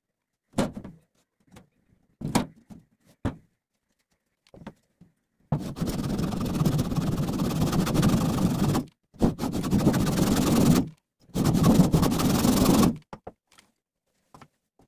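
A few sharp knocks on an empty sheet-metal oil tin. Then a blade scrapes hard along the tin's rusty edge and seam in three long gritty stretches of about three, two and two seconds, working at cutting or prising the metal.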